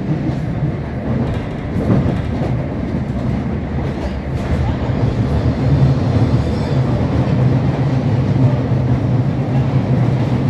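Jubilee line 1996 stock Underground train running, heard from inside the carriage: steady rumble and rail noise with a low hum that grows stronger about halfway through.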